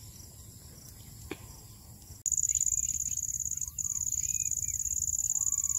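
Insects chirring in a loud, steady high trill that comes in abruptly about two seconds in, with a brief break, and birds calling in short chirps over it. Before that there is only a faint click.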